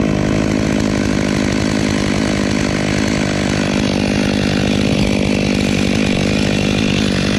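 Chainsaw engine running at a steady pitch, held at an even speed with no rise or fall.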